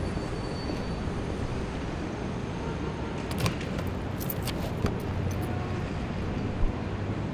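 A car door is unlatched and opened with a sharp click about three and a half seconds in, followed by a few lighter clicks and a short knock. Underneath is a steady low rumble of city traffic.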